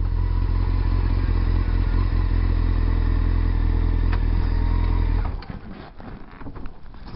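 Honda CBR600F4i's inline-four engine with a Boss sport exhaust running steadily at low revs while the motorcycle rolls slowly, then switched off about five seconds in. After that come faint clatter and rustle.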